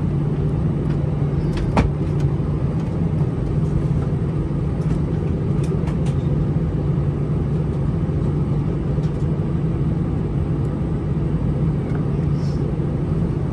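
Steady cabin drone of an Airbus A319-100 taxiing slowly to the gate on idling engines, heard inside the cabin, with a low even hum. One sharp click about two seconds in.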